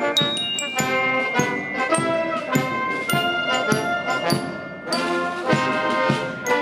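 Military marching band playing a march: brass (trumpets and trombones) carrying the tune over a steady drum beat of about two strokes a second.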